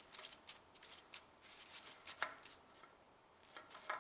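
Faint, scattered light clicks and rustling of a spin-on oil filter being unscrewed from an engine block, with pliers and hands working on it.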